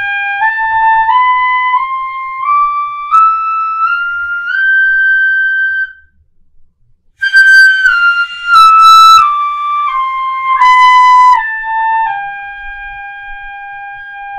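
Pífano (Brazilian transverse fife) in C playing a G scale with a flat seventh (G A B C D E F G), one beat per note: it steps up eight notes and stops about six seconds in. After a breath it steps back down to the low G and holds it.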